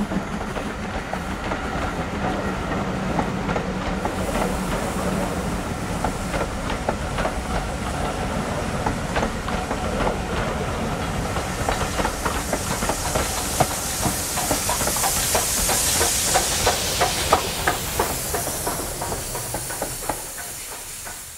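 Steam-hauled train of passenger coaches running past and away: a steady rumble of wheels with repeated clacks over rail joints and a hiss of steam. The locomotive's exhaust beats die away in the first seconds, and the sound fades near the end.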